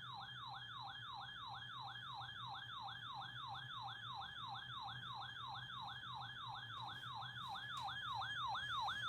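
Electronic alert siren on a weather alert receiver sounding for an incoming flood warning: a fast falling whoop, repeated about three and a half times a second at an even level.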